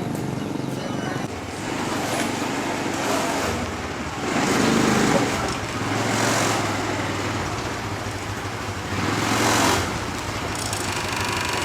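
Road traffic passing, with a few vehicles swelling by and a steady engine hum in the middle.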